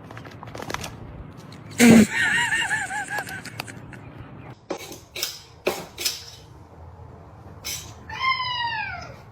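A cat meowing twice: a high, wavering call about two seconds in and a shorter call that rises and then falls in pitch near the end, with a few light knocks in between.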